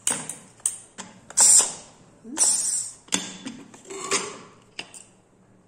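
Aluminium pressure cooker lid being twisted and worked loose from the pot after the pressure has dropped: a series of short metal-on-metal scrapes and creaks, the loudest about a second and a half and two and a half seconds in.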